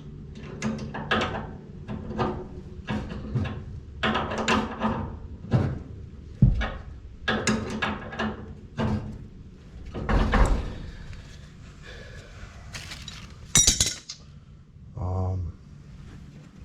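Metal pipe fittings and hand tools clinking and knocking while a gas line is being assembled, in a run of short bursts. Near the end comes a brief loud burst of noise.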